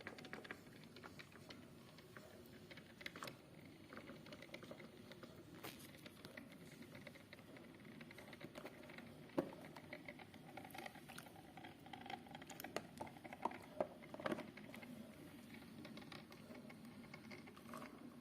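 Faint, steady patter with many small irregular clicks, typical of a drip coffee maker brewing, with coffee dripping into the carafe.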